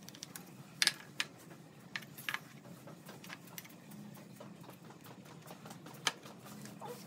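A steel carpenter's square and pencil being handled on pine pallet boards: a few scattered light clicks and taps, the sharpest about a second in and again near the end, over a faint steady low hum.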